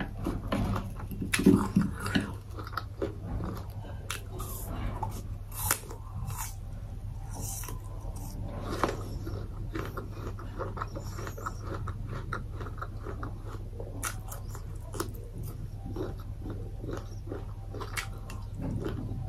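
A person chewing and biting food close to the microphone: irregular wet mouth sounds and many short clicks, loudest about a second and a half in, over a steady low hum.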